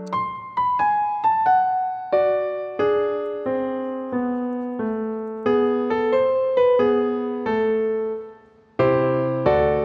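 Background music: a slow, gentle melody of struck notes that ring and fade, with chords underneath. It drops out briefly about eight and a half seconds in, then resumes.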